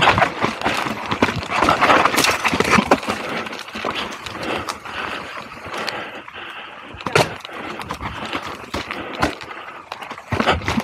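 Mountain bike riding fast down rocky dirt singletrack: tyres rolling and crunching over dirt and stones, with many sharp knocks and rattles as the bike hits rocks and roots.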